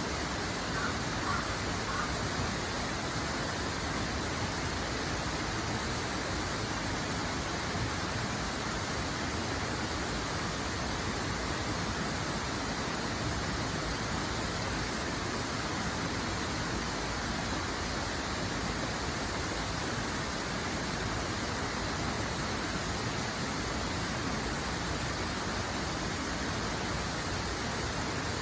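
Steady rushing water, an even, unbroken wash of sound like a waterfall or fast stream.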